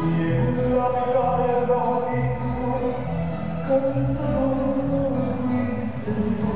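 Cumbia music played loud over a sonidero dance-hall sound system, with a stepping bass line under long held melody notes.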